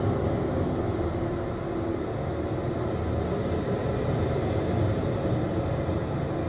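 Steady low rumbling noise with no distinct knocks or breaks.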